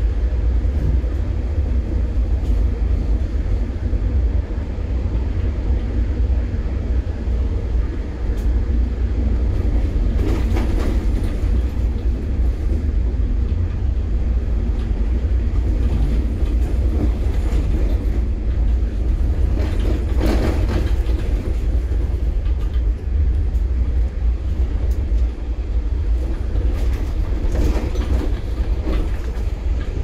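Ride in a moving passenger train: a steady low rumble from the running gear, with louder rattling swells about a third of the way in, two-thirds in and near the end.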